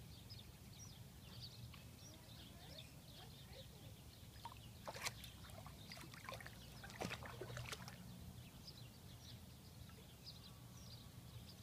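Faint splashing and lapping of water around a dog wading in shallow water, with a few sharper splashes about five and seven seconds in.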